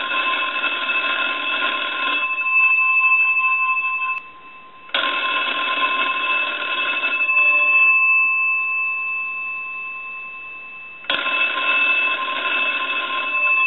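The twin bell gongs of a Western Electric wooden wall crank telephone ring in bursts of about two seconds each, driven by a ringing signal from a line analyzer as for an incoming call. The gongs hum on and fade after each burst. A burst ends about two seconds in, a second starts about five seconds in, and a third starts about eleven seconds in.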